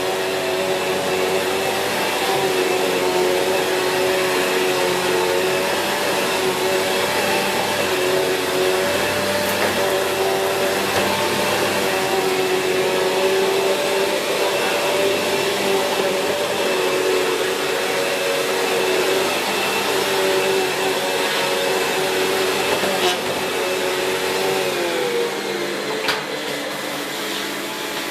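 Sanyo SCA-7AX upright bagged vacuum cleaner running steadily while vacuuming, its motor giving a steady whine over a rush of air. The motor note dips slightly near the end.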